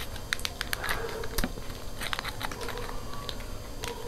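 Small foil sauce sachets crinkling and crackling as they are squeezed out by hand, a run of irregular sharp clicks.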